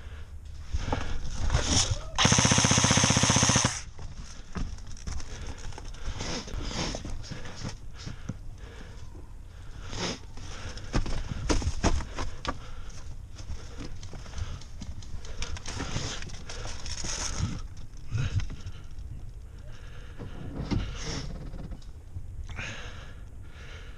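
Airsoft electric rifle firing one full-auto burst of about a second and a half, a couple of seconds in. Scattered knocks and rustling around it.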